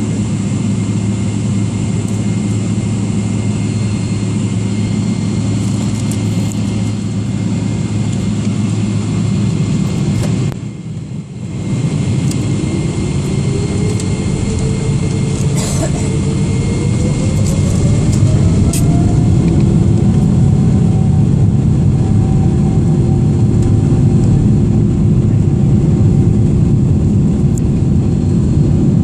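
Boeing 777-300ER's GE90 jet engines heard from inside the cabin, running steadily at low power. After a brief dropout about eleven seconds in, a rising whine climbs for several seconds as the engines spool up, and the sound then settles louder and steady.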